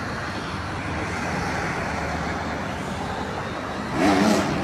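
Steady hum of road traffic, cars and trucks running along a multi-lane city road below. A brief voice is heard near the end.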